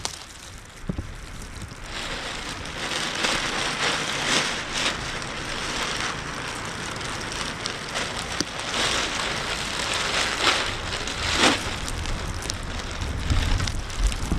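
Wind gusting against a Ziploc bag over the camera, the plastic rustling, with louder crinkles now and then.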